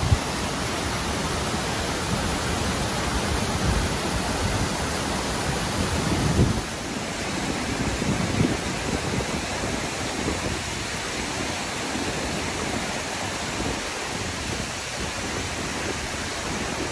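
Steady rushing of a waterfall and the creek below it cascading over boulders, with a few low thumps about a third and a half of the way in.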